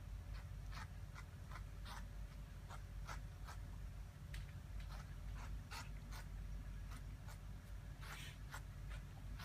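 A cat busy with silver vine (matatabi) makes irregular short scratching and rustling sounds, about one or two a second, over a steady low hum.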